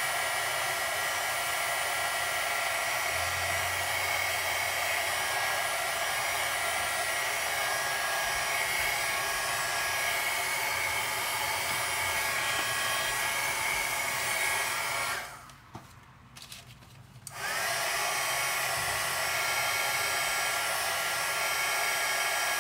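Craft heat gun blowing steadily, a rush of air with a fan whine, as it heats a stamped thermal-paper store receipt so the paper turns black. It switches off about 15 seconds in and comes back on about two seconds later.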